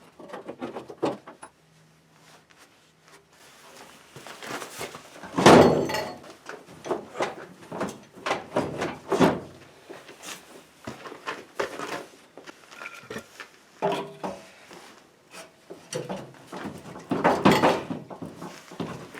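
Irregular clunks, knocks and scrapes of ATV parts being handled and worked loose during disassembly, with a quiet pause about two seconds in and the loudest clunk about five seconds in.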